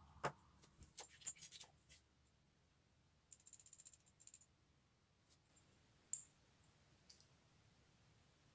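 Faint, sparse metallic clicks and taps from a cruciform (cross) lock cylinder being handled with its key and a metal follower rod, with a quick run of rapid clicks about three seconds in.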